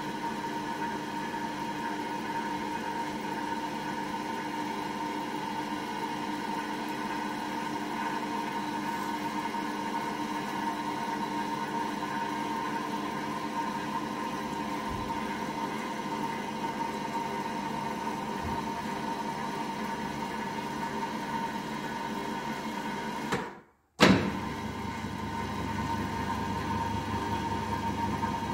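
Two-post car hoist's electric lift motor and drive running steadily as the arms are raised, a constant mechanical hum. Near the end it stops for a moment and starts again with a loud clunk.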